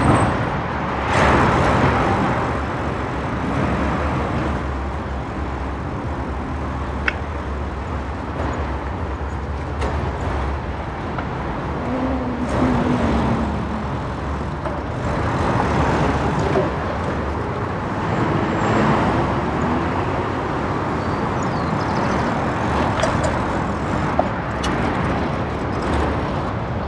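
City street traffic: cars and buses passing, their noise swelling and fading every few seconds over a steady low rumble, with a couple of short sharp ticks.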